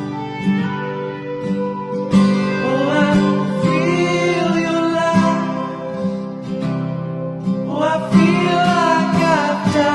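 Background music: acoustic guitar with a singing voice coming in for two phrases.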